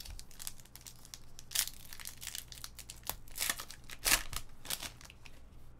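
A trading-card pack wrapper being torn open by hand: crinkling and crackling with several sharper rips, the loudest about a second and a half in and around four seconds.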